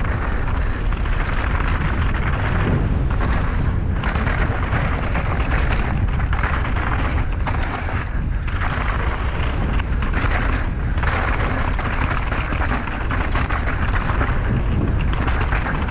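Wind buffeting a clip-on microphone and the tyres of a downhill mountain bike rolling fast over a loose dirt and gravel trail, a steady loud rushing and rumble. It thins briefly a few times.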